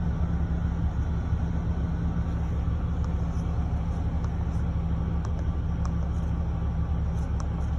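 RAM pickup truck's engine idling, a steady low running sound that does not change.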